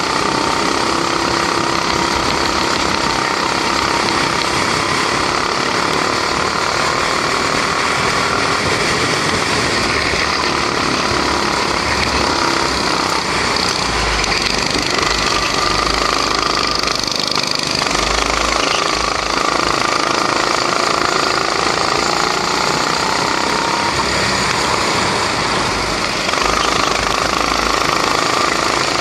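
Single-cylinder four-stroke 270cc Honda engine of a rental go-kart running hard at racing speed, heard from on board the kart. Its pitch rises and falls with the throttle through the corners.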